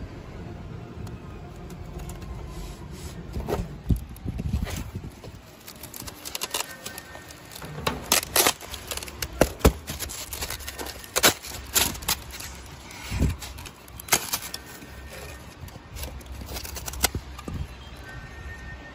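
Cut pieces of foil-faced insulation foam being handled and pulled apart by hand on the cutting table: irregular knocks, scrapes and crackles.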